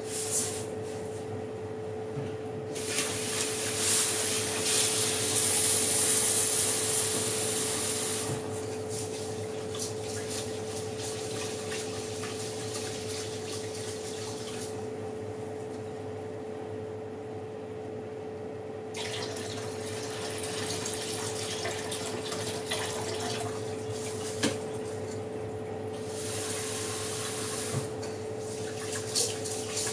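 Steady hum of an oven running while cookies bake, with one fixed tone. Over it, a rushing hiss comes and goes: once from a few seconds in for about five seconds, and again from just past the middle almost to the end, with some light knocks near the end.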